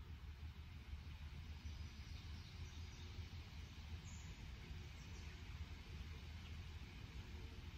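Quiet outdoor ambience: a steady low rumble with a few faint bird chirps.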